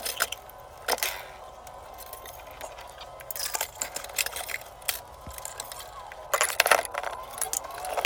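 Scattered metallic clinks and taps as an expansion-tank wall bracket is handled and fastened, with a busier flurry about six and a half seconds in.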